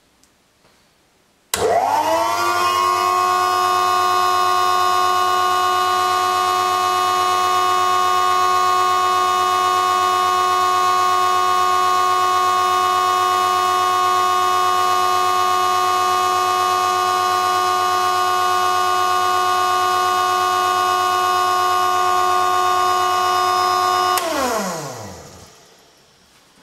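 Electric vacuum pump drawing air from around an aneroid barometer to lower the pressure on it. It starts suddenly about a second and a half in, runs with a steady whine, then switches off near the end and spins down with falling pitch.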